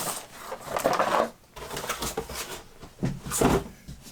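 Handling noise from a mechanical keyboard with an acrylic case being moved about on a desk: two bursts of rubbing and knocking, about a second in and again near the end.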